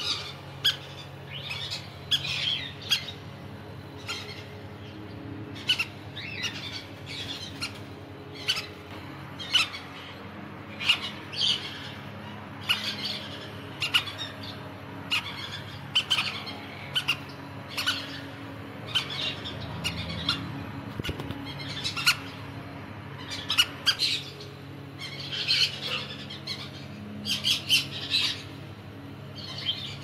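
Crimson-bellied conures calling: a running series of short, sharp chirps and squawks, coming in quick clusters at times, over a low steady hum.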